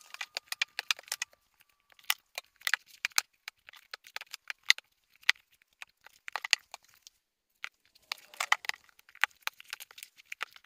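Old cloth-bound hardcover books being picked up, slid and set down on stacks on a wooden table. The result is a run of irregular knocks and taps that come in quick clusters with short pauses between them.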